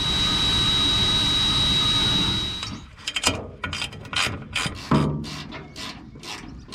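A power drill runs steadily with a thin high whine for about two and a half seconds and stops. Then a ratchet wrench clicks in short, uneven runs as the nuts on the stainless bolts holding the bow roller to the bowsprit are tightened.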